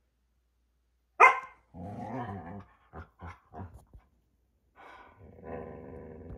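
Standard poodle play-growling: one sharp bark about a second in, then a long growl, a few short growls, and another long growl near the end.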